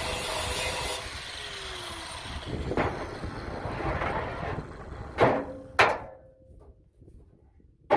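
Power grinder on a steel welding-table top, switched off about a second in and spinning down with a falling whine. Then come four sharp knocks, the loudest two close together about halfway through.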